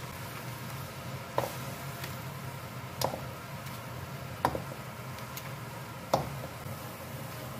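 Glutinous rice balls (tangyuan) dropped one at a time into hot water in a wok: four short plops about a second and a half apart, over a steady background hiss.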